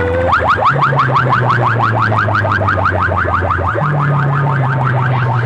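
Electronic alarm-style sound effect blasting from banks of horn loudspeakers: a rapid train of short rising chirps, about six a second, over a deep steady bass drone that steps up in pitch about four seconds in.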